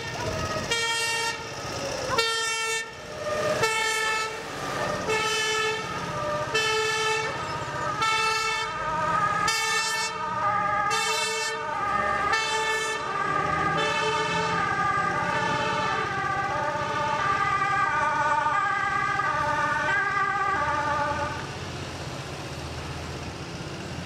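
Fire engines' two-tone sirens sounding, alternating between a high and a low note, over the rumble of the tanker trucks' engines. The sirens stop near the end, leaving the engines running.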